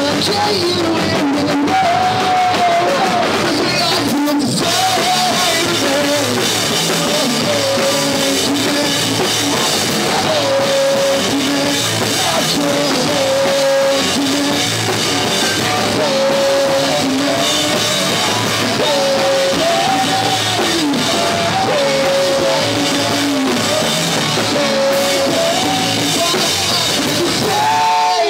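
Live rock band playing loud: a drum kit and electric guitars driving a full-band rock song, with a stepping melody line over the top.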